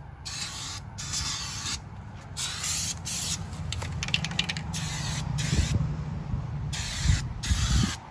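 Aerosol spray paint can spraying in repeated short bursts, hissing on and off, with a run of quick stuttering taps on the nozzle midway through. A low rumble runs underneath, with a few low bumps near the end.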